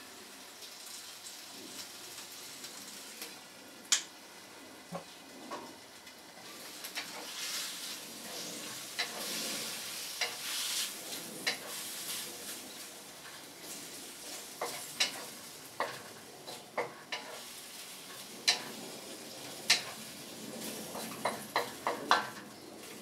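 Chicken stir-fry sizzling in a hot pan with hoisin sauce, as a utensil stirs it, making frequent sharp clicks and scrapes against the pan. The sizzle swells for a few seconds in the middle, and the clicks come thick and fast near the end.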